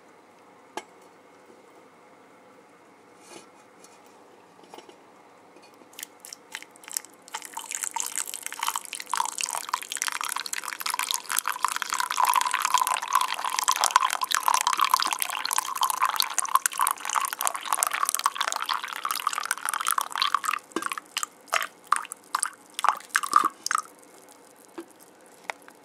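Coffee being poured into a mug holding a sugar cube and a spoon: a steady pour starting about seven seconds in and running for some thirteen seconds. It ends in a scatter of drips and small taps. A few isolated clicks come before the pour.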